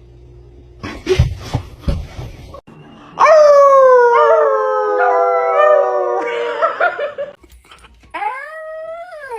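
A dog howling: after a few knocks, one long, loud howl that sags slowly in pitch, then a shorter howl that rises and falls near the end.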